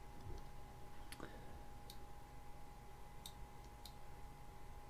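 Computer mouse button clicking four times, unevenly spaced, over a faint steady hum.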